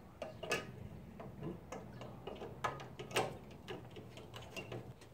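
Irregular sharp clicks and taps of plastic push-pin grille clips being pressed and snapped into their holes, with handling noise between them. The clips are stiff and hard to seat.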